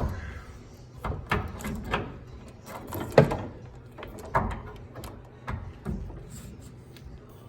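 Scattered metal clinks and knocks, about one a second, from a socket wrench on a long extension being fitted and worked on the fuel tank guard bolts.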